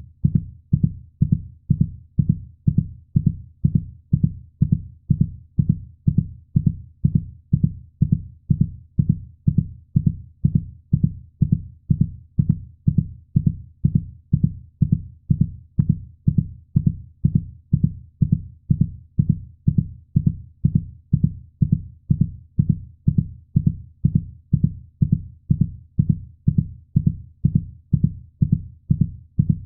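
Recorded heartbeat: low, soft thumps in a steady, even rhythm.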